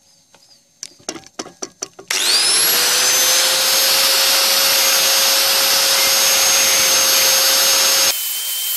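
A few handling knocks, then a handheld angle grinder is switched on about two seconds in: its motor and disc spin up with a rising whine and settle into a loud, steady free-running whine, the disc not yet touching metal. Near the end the sound drops abruptly to a quieter whine at a different pitch.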